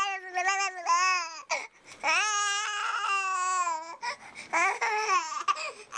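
Tired, grumpy baby fussing: high-pitched, whiny cries, the longest held about two seconds, with shorter ones near the end.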